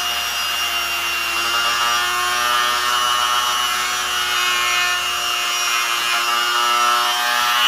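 Mallory corded rotary tool (micro retífica) running steadily at its lowest speed setting, its small bit grinding and boring an eye cavity into a lure body, a steady whine with a rubbing grind.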